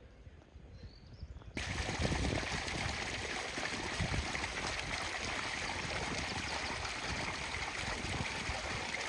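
Running water, a steady rushing and trickling that starts abruptly about a second and a half in.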